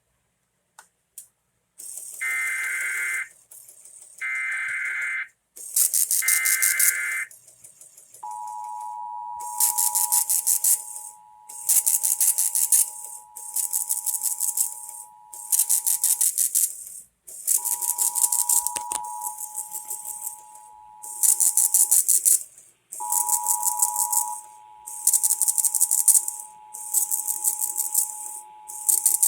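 Emergency Alert System test tones: three short bursts of SAME header data, then the two-tone attention signal, which sounds with two short breaks. A loud, hissing, rattle-like noise pulses over it about every second and a half.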